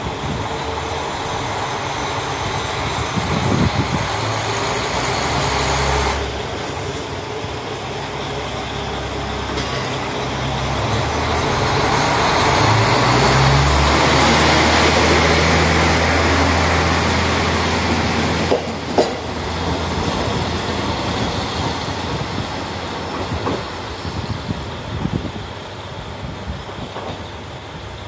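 KiHa 40 diesel railcar pulling away from the platform: its diesel engine revs up under load as the car accelerates past, loudest about halfway through, then fading as it moves off down the line. A single sharp knock comes about two-thirds of the way through.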